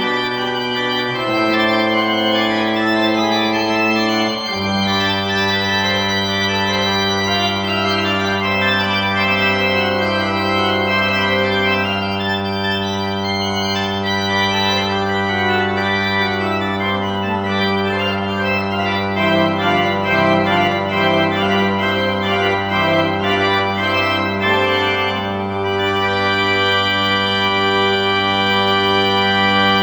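Church organ playing slow sustained chords. From about four seconds in, a deep bass note is held while the upper parts move above it.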